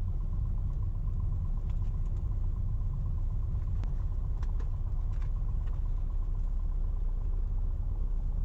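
Piper Cherokee Six's six-cylinder Lycoming engine running steadily at low power, a continuous low rumble heard inside the cabin, with a faint steady tone above it and a few light clicks.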